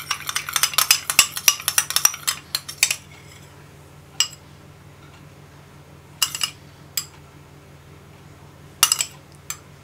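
Metal spoon stirring a thick ketchup and Worcestershire sauce mixture in a small ceramic bowl, clinking rapidly against the bowl for about three seconds. Then a few single clinks of the spoon against the bowl, spread out, as the sauce is spooned out.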